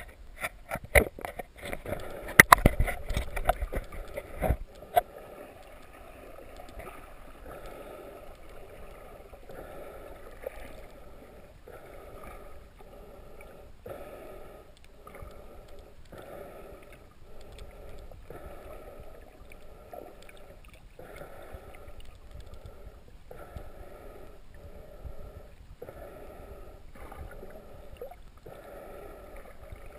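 Splashing and sharp knocks as an underwater camera is dunked back below the surface, then muffled underwater sound that swells and fades about once a second.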